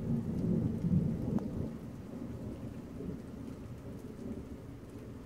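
Thunder rumbling, loudest in the first second and a half and then dying away, over steady rain.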